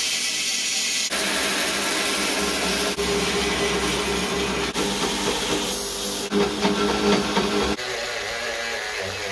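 Belt grinder running, its abrasive belt grinding the steel edges of an axe head, in a series of short clips that cut abruptly one to the next. Near the end, a rotary tool with a sanding drum grinding inside the axe's eye.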